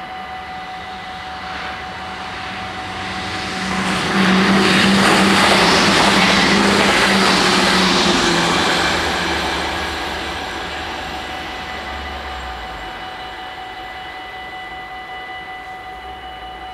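Level-crossing warning bells ringing steadily while the barriers are down. A passing vehicle swells up over them about four seconds in, its hum dropping in pitch as it goes by, and fades away by about ten seconds.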